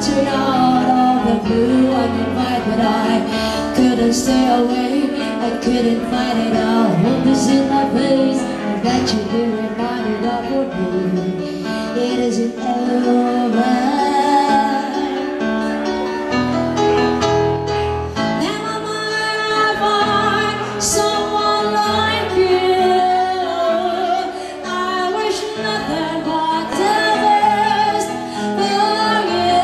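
Live band music at full volume: a woman singing lead over electric guitar, drums and keyboard.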